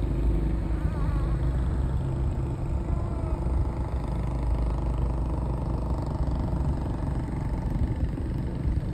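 Car driving along a paved road, heard from inside: a steady low rumble of engine and tyre noise.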